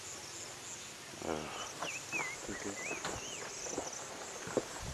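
Insects chirping in a steady, high-pitched pulsing trill, with a warbling whistle rising and falling about two seconds in and a faint distant voice.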